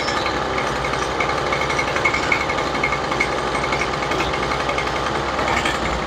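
Toro string trimmer's small two-stroke engine running steadily on the bench while its carburetor's rich–lean mixture screw is turned to tune it.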